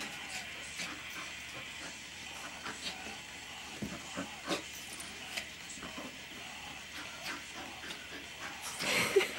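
Puppies play-fighting at close range: scattered scuffles and rustling as they wrestle on a rug, with a short, louder dog sound near the end.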